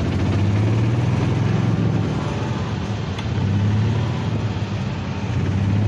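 A small open-sided vehicle's engine running steadily as it drives along, a low hum that swells and eases a little, with wind and road noise over it.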